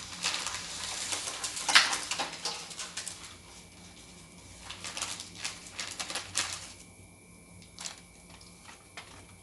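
Dry pasta and its packet being handled and tipped into a saucepan: a dense patter of small clicks and crinkles for the first six or so seconds, the loudest about two seconds in, then only a few scattered clicks. A faint steady hum runs underneath.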